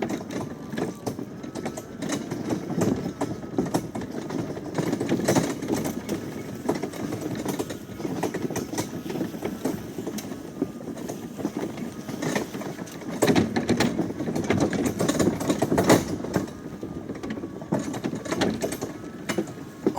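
Greenworks electric riding lawnmower driving downhill over rough ground while towing a loaded firewood wagon: a constant jolting rattle and clatter from the mower and wagon, with a faint steady motor whine early on.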